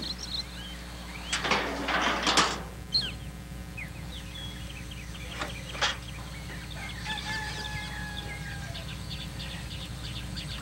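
A rooster crows about a second in, the loudest sound, over small birds chirping throughout; a fainter drawn-out call follows later.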